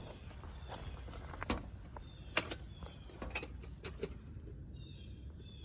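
Scattered light clicks and knocks of metal parts and tools being handled, irregular and unhurried.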